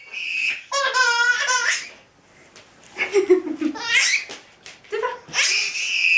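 Baby squealing and laughing in a run of high-pitched shrieks with short pauses between them; a long high squeal starts near the end.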